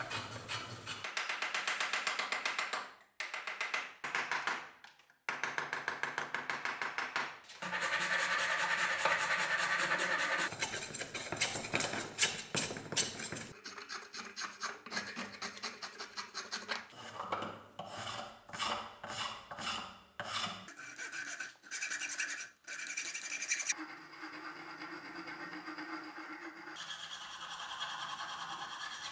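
Wood rasp and file scraping in quick, repeated back-and-forth strokes along an ash axe handle as it is shaped by hand. The strokes come in several separate spells, each starting and stopping abruptly.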